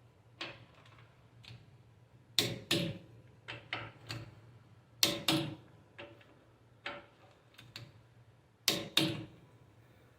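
Sharp metal knocks and clicks, some single and some in quick pairs, coming irregularly every second or two, from parts of a Chevy 10-bolt rear differential being handled as the posi carrier is set in place against the pinion.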